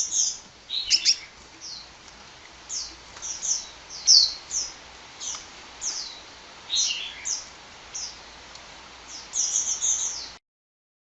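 A sunbird (kolibri) chirping: a run of short, high, downward-sweeping chirps a fraction of a second apart, with a quick cluster of chirps near the end. The sound cuts off suddenly shortly before the end.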